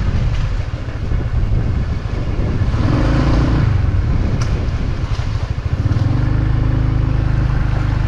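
Motorbike engine running while riding, with wind rumbling on the microphone.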